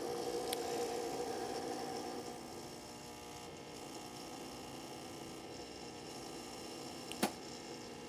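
Lelit Anna 2 single-boiler espresso machine's vibratory pump humming steadily while an espresso shot extracts, a little louder in the first two seconds. A single sharp click near the end.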